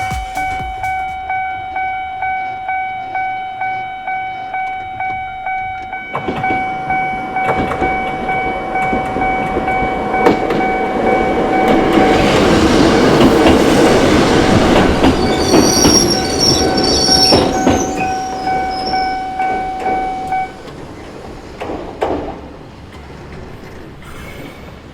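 Japanese level-crossing alarm ringing at about two strokes a second while a Choshi Electric Railway train passes. The train's wheels rumble and clatter over the rails, with a high wheel squeal near the middle. The alarm cuts off suddenly about 20 seconds in, once the train has cleared.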